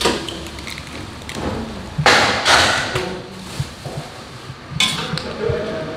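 Cooking sounds at a steel wok: a sharp knock right at the start, then loud bursts of hissing noise about two seconds in and again near five seconds.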